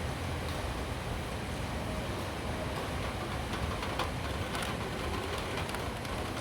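Steady rain hiss over a continuous low rumble, with scattered sharp raindrop ticks coming in from about halfway.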